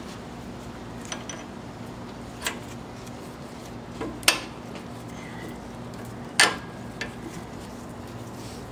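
A handful of sharp metallic clinks and taps from caliper bolts being fitted by hand into a rear disc-brake caliper. The loudest clinks come about four and six and a half seconds in, over a steady low hum.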